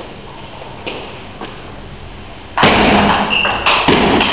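A table tennis ball clicks faintly off bat and table twice. About two and a half seconds in, a sudden loud burst of noise follows, with several sharp knocks and a thin high squeal, as the point ends.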